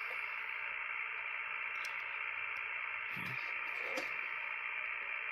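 Steady static hiss from a Yaesu FT-ONE shortwave transceiver's speaker, tuned to 18.142 MHz in the 17-metre band with no station coming through: the band is in poor shape.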